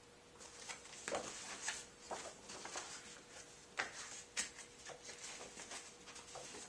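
Paper pages of a paperback picture book rustling and flipping as they are leafed through, a string of soft, irregular rustles and taps over a faint steady hum.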